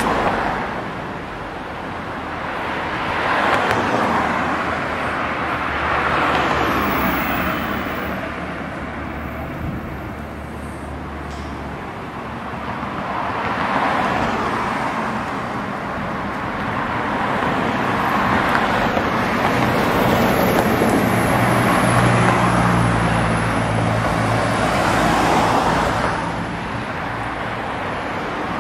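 Road traffic on a city street: cars passing one after another, their engine and tyre noise swelling and fading every few seconds, with a steady low engine drone underneath at times.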